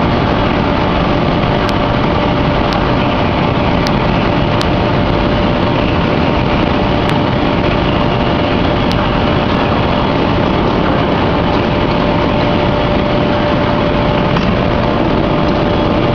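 Steady, loud drone of heavy forging machinery running: a hydraulic open-die forging press and its manipulator, with a constant hum tone throughout and no distinct press strokes.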